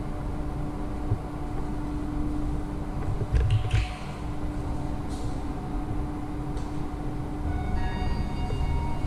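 Steady low hum of an elevator lobby, with a few short knocks about three and a half seconds in. Near the end a high electronic chime of several tones starts, the hall signal of a Hitachi traction elevator arriving at the floor.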